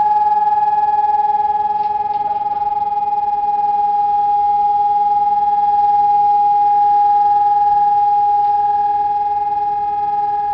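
Civil defence siren sounding a steady, unbroken tone at one pitch, with several overtones above it and a weaker tone below: the continuous-tone signal of a siren test.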